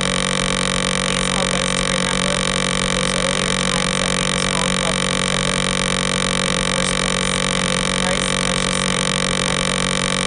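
A loud, unchanging buzzing drone made of many fixed tones, like electrical interference. Only faint traces of a voice show beneath it.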